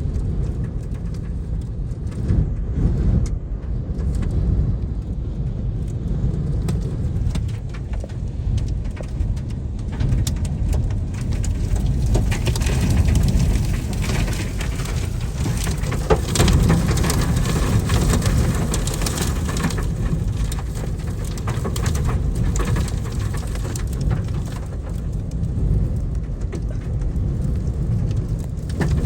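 Extreme storm winds buffeting the vehicle and microphone with a heavy, continuous low rumble. From about a third of the way in, a dense patter of wind-driven dust, debris and rain strikes the vehicle and keeps going, rising and easing in gusts.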